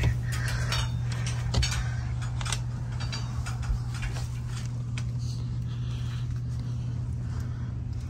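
Steady low hum of the HVAC system's blower fan running, with scattered clicks and rustles over it.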